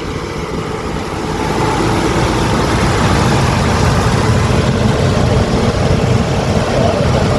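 Engine of a turbocharged Holden VL running, a steady low rumble that grows louder over the first few seconds and then holds.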